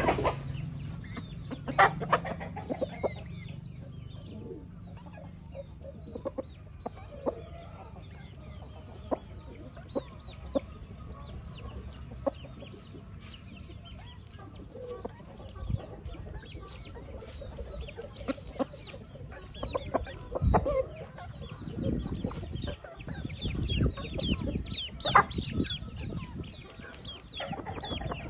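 Rooster clucking as it pecks and scratches at dry dirt, with sharp little taps scattered through.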